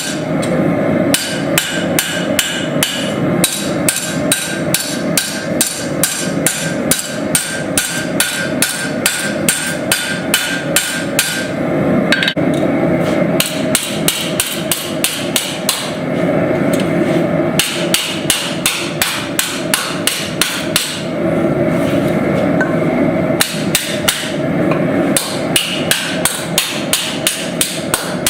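Hand hammer striking steel in rapid, even blows, several a second, in runs with brief pauses, over a constant rushing background noise.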